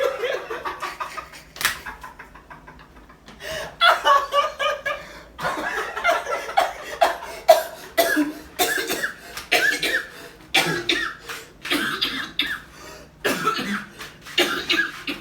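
A person coughing over and over: short, harsh coughs in quick runs, with a quieter pause about two seconds in.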